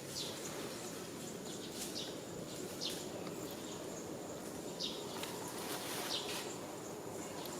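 Short, high chirps falling in pitch, about six of them spaced a second or so apart, over a steady outdoor background hiss.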